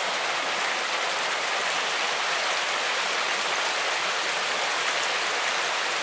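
Mountain stream rushing steadily over rocks, a loud, even water noise; the creek is running high and full after rain.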